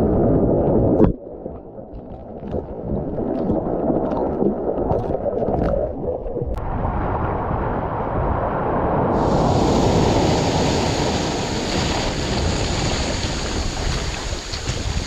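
Surf washing on the shore with wind buffeting the microphone. It drops away suddenly about a second in, with a few faint clicks, then builds back into a full rushing wash of water and wind from about six seconds on.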